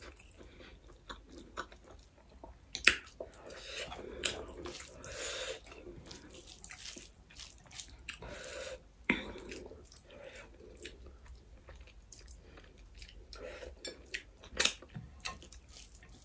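Close-miked chewing and wet mouth sounds of a person eating rice and chicken curry by hand, with irregular soft smacks and clicks. Two sharper, louder smacks come about three seconds in and near the end.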